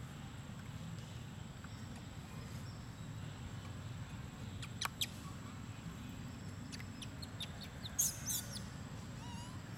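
A quick burst of high-pitched squeaky chirps from a small animal about eight seconds in, over a steady low outdoor rumble, with a couple of sharp clicks about halfway through and one short rising chirp near the end.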